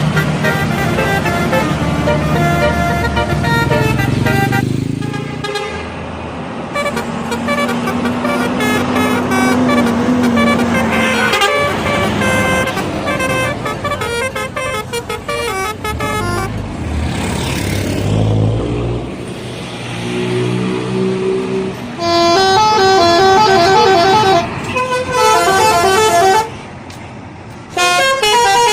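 Indonesian bus 'telolet' horns, sets of air-horn trumpets sounding in turn to play quick stepped tunes, over running bus engines. The loudest bursts of tune come in the last few seconds, with short breaks between them.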